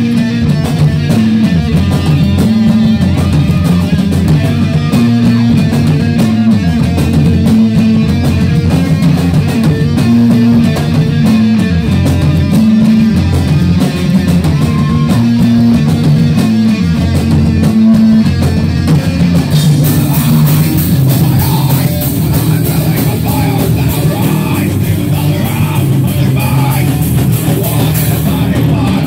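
Metal band playing live and loud: distorted guitar and bass on a heavy repeating riff over a drum kit. About twenty seconds in, the song moves into a brighter section with a steady high wash over the riff.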